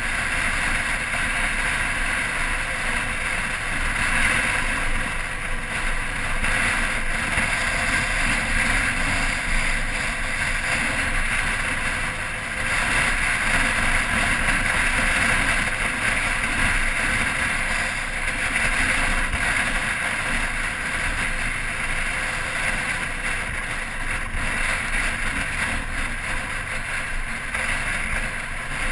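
Motorcycle riding at a steady pace, heard from a camera mounted on the bike: the engine running under a heavy, steady rush of wind noise on the microphone.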